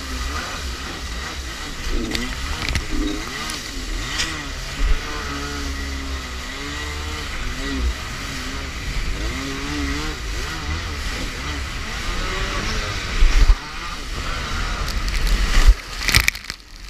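Kawasaki 650SX stand-up jet ski's two-stroke twin engine running hard, its pitch rising and falling as the throttle works through rough sea, with water splashing and spray against the hull. Near the end the ski buries into a wave in a loud splash, and the sound then drops away and turns muffled.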